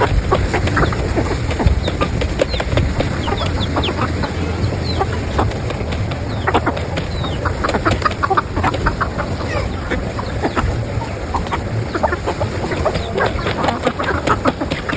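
Chickens clucking, many short calls in quick succession, over a steady low hum.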